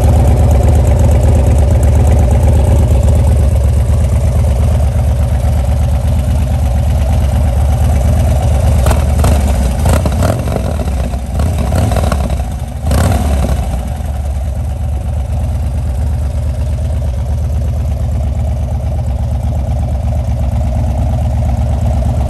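Harley-Davidson Dyna FXDB's stock 103 cubic inch V-twin idling steadily through a Bassani exhaust. A few short clicks come about nine to thirteen seconds in.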